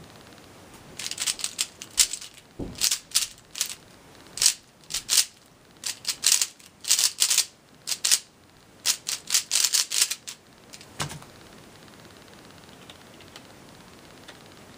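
Zhanchi 3x3 speedcube turned rapidly by hand in a speedsolve: quick clusters of plastic clicking and clacking for about nine seconds. It ends with a single thump a little after eleven seconds as the cube is set down and the timer is stopped.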